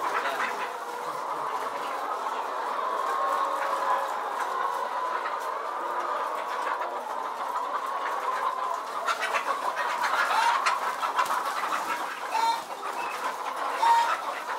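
A large flock of caged Lohmann laying hens clucking and calling together in a steady, dense chorus, with a few short, clear calls standing out near the end.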